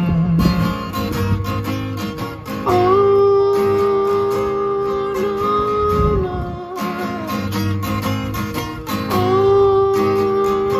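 Song music with acoustic guitar strumming under long held notes.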